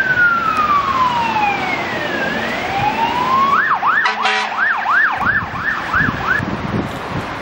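Fire engine siren sounding a slow wail that falls and then rises. A little over three seconds in it switches to a fast yelp of nearly three sweeps a second, with a short horn blast about four seconds in. The siren stops a little after six seconds in, leaving engine and tyre noise on the wet road.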